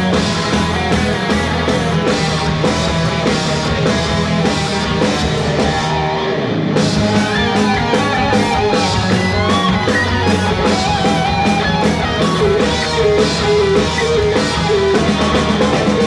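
Rock band playing live, guitar over a steady drum beat, with a short break about six seconds in.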